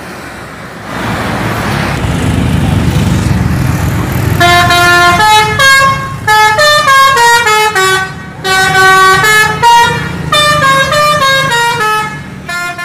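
Indonesian tour bus's multi-tone musical horn (a 'telolet' horn) plays a quick tune of stepping notes. It starts about four seconds in, after the low running of the bus's engine.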